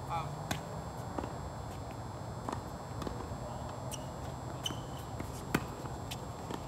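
Tennis ball struck by rackets and bouncing on a hard court during a doubles rally: a handful of sharp pops at irregular intervals, the loudest about five and a half seconds in, over a steady low hum.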